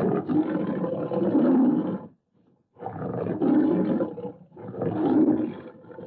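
Dinozord roar sound effect: three long, rough roars, the first about two seconds long and the next two shorter, with brief gaps between them.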